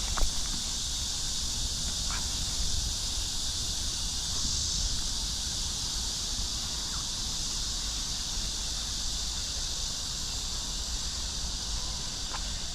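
Outdoor ambience: a steady high hiss over a low rumble, with a faint click about two seconds in.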